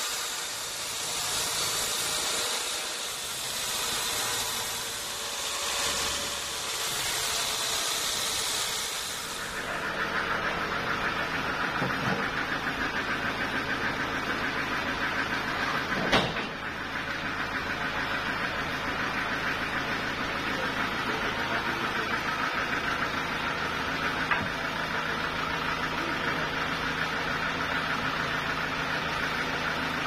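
Band sawmill cutting along a teak log with a steady hiss, which ends about ten seconds in. After that the sawmill runs without cutting, a steady mechanical hum, with a single knock about halfway through.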